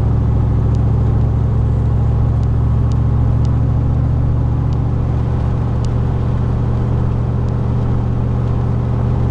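A 2000 Chevrolet Silverado's 4.8-litre V8 cruising at highway speed, heard from inside the cab as a steady low engine and exhaust drone mixed with road noise. The truck is partway through a 3-inch exhaust build.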